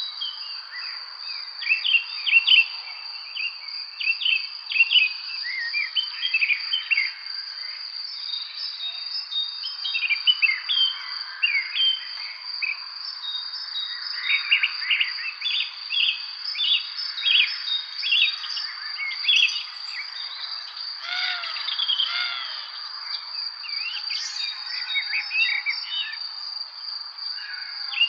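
Evening spring birdsong: several birds chirping and singing in short, overlapping phrases over a continuous high, even insect trill.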